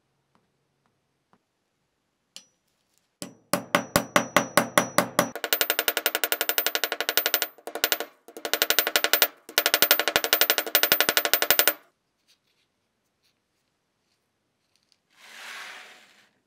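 A rapid series of sharp knocks at about six a second, in four bursts separated by short breaks, from a workshop tool or striking job. A short hiss follows near the end.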